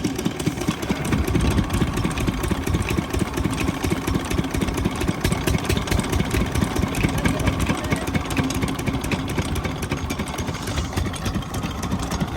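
12 hp single-cylinder diesel pump-set engine running steadily, with a rapid, even chugging of firing pulses.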